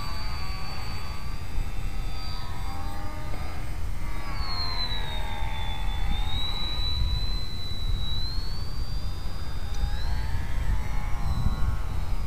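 A radio-controlled Zivko Edge aerobatic model airplane's motor and propeller whining, the pitch sliding down and back up as the throttle changes through 3D manoeuvres. A low wind rumble on the microphone runs underneath.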